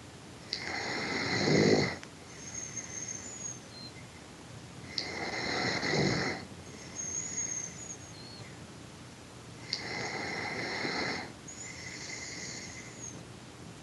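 A sleeping person snoring: three loud, rasping in-breaths about four to five seconds apart, each followed by a faint, high-pitched whistle on the out-breath.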